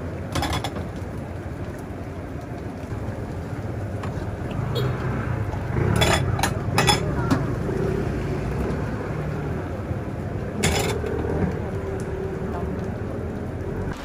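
A steel ladle scooping liquid from a pot and pouring it into paper cups, with a few sharp metal clinks: one near the start, a cluster about six seconds in and another near eleven seconds, over a steady hiss.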